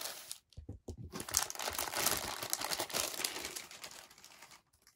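Clear plastic packing bag crinkling as the figure's black plastic display base is pulled out of it: a few short rustles, then about three seconds of dense crinkling that stops shortly before the end.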